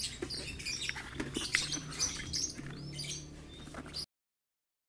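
Small birds chirping faintly over a low hum and light rustling, cutting off to dead silence about four seconds in.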